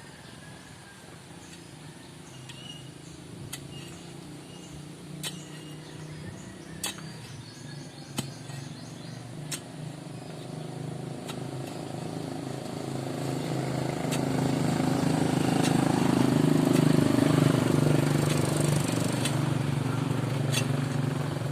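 A motor engine running steadily, growing louder through the middle and peaking near the end as it comes closer, with sharp clicks about every second and a half.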